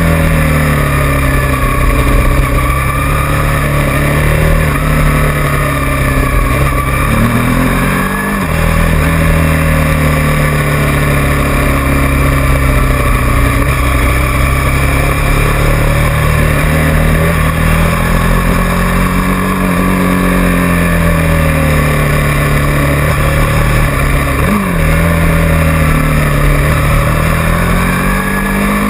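Motorcycle engine running at road speed, its pitch rising and falling with the throttle through the bends, with short breaks in the note about eight seconds in and again near twenty-five seconds, over steady wind noise.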